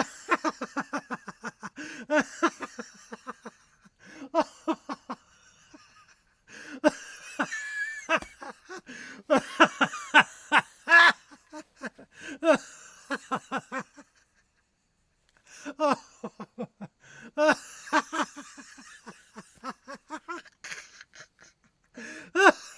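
A man laughing heartily in repeated bouts of quick, rhythmic 'ha-ha' pulses, with breathy wheezes and in-breaths between bouts. The laughter stops briefly about two-thirds of the way through, then starts up again.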